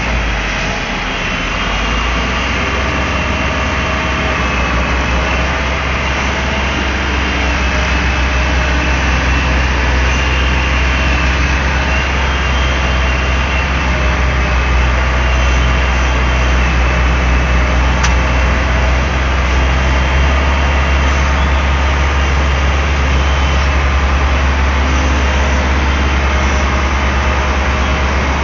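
Daewoo Solar 280 LC-III tracked excavator's diesel engine running steadily: a deep, even drone with fainter whining tones above it that waver slowly in pitch. The level dips briefly about a second in.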